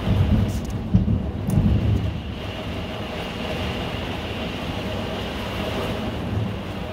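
Severe thunderstorm wind and heavy rain battering a 5th-wheel camper, heard from inside: a steady roar with loud low rumbling surges in the first two seconds or so.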